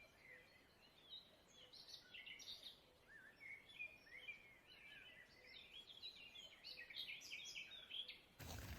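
Faint songbirds chirping: many quick, high notes and short trills, busiest in the second half, over an otherwise near-silent background.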